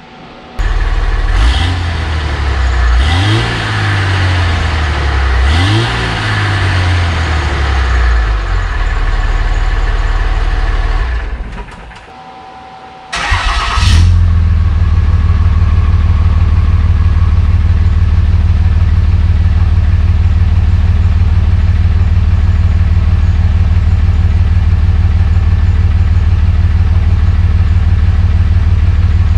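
Dodge pickup's Cummins diesel engine heard at the tailpipe of a new Banks Monster 4-inch cat-back exhaust with muffler. It starts about half a second in and is revved up and back down twice. Near the middle the sound drops away for about two seconds, then after a short loud burst it settles into a steady idle.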